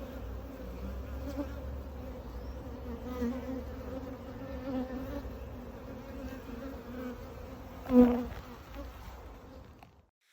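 Honeybees buzzing around an open hive: a steady, wavering hum of many bees. A sharp, louder buzz comes about eight seconds in, and the sound cuts off suddenly near the end.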